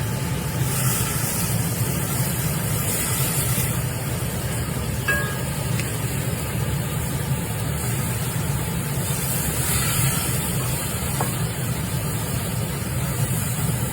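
Food sizzling in a HexClad hybrid nonstick pan: a steady, loud hiss over a low hum.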